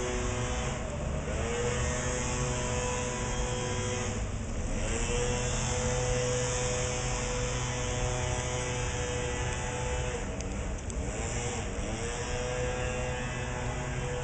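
A car engine running, its pitch dipping and rising again a few times, over a steady hiss of rain.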